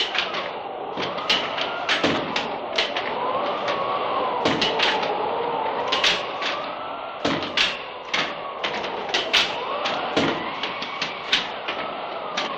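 Spooky sound effect from a 1974 Halloween record: a wavering, moaning tone that slowly slides up and down, under irregular sharp clicks and knocks.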